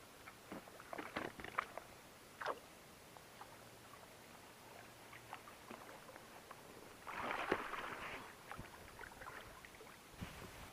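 Splashing water as a hooked wels catfish thrashes at the surface beside an inflatable boat, loudest about seven seconds in. Before it come a few sharp knocks and clicks.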